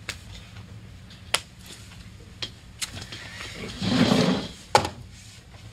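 A man getting up from an office chair: a brief rustle of movement about four seconds in, with a few scattered small clicks and knocks.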